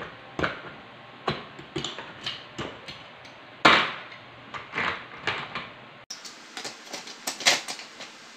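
Metal tongs picking ice cubes out of a plastic bag: irregular clinks and clicks of ice knocking against the tongs and bag, the loudest a little under four seconds in.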